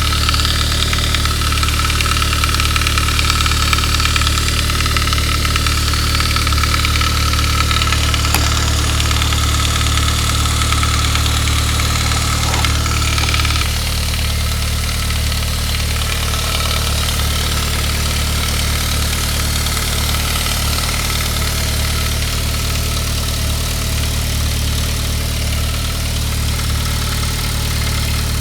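Saab 9-3 engine idling after a cold start with a rattle from the valve-cover-mounted upper timing chain guide. The guide's plastic has gone hard and shrunk in its bracket, so it rattles until the engine warms; the timing chain itself is sound. About halfway through, the sound changes abruptly and gets slightly quieter.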